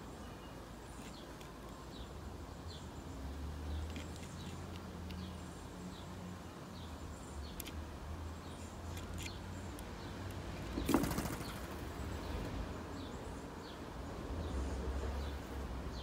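A European starling's wings flapping as it takes off from a feeding board, a brief rapid whirr of wingbeats about eleven seconds in. Faint high bird chirps are scattered throughout, and a low rumble comes and goes.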